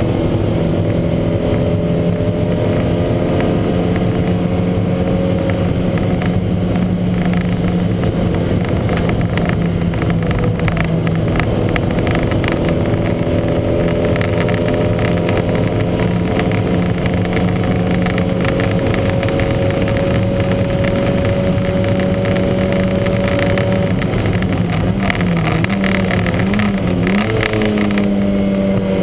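Lancia Montecarlo race car's engine heard from on board, pulling hard under load, its pitch climbing slowly for a long stretch. Near the end the pitch dips and wavers briefly as the driver lifts or changes gear, then climbs again. The engine is running with what the uploader calls a huge misfire.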